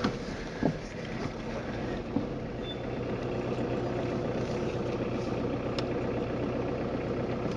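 Steady low hum of a car's engine and road noise heard from inside the cabin while driving slowly.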